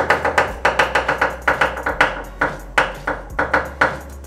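Chinese cleaver chopping garlic cloves on a wooden cutting board: a quick, uneven run of knocks, about five a second, each chop with a short metallic ring, stopping shortly before the end.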